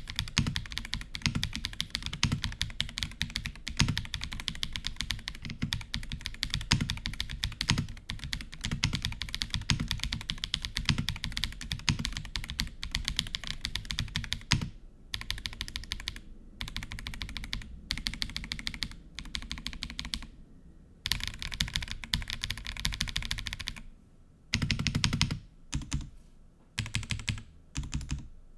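Fast typing on an Akko 5075S mechanical keyboard with Akko V3 Pro Cream Yellow linear switches, lubed with Krytox 205g0 and with lubed stabilizers: a dense run of keystroke clicks that, about halfway through, breaks into bursts separated by short pauses.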